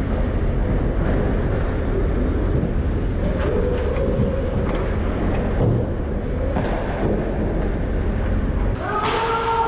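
Steady low rumble with a few faint scrapes, from skating on ice heard through a body-worn GoPro. The rumble drops away shortly before the end.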